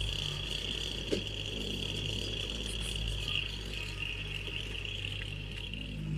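Diesel engine of a Kubota track machine running steadily at low revs, under a steady high-pitched buzz. There is a single sharp click about a second in.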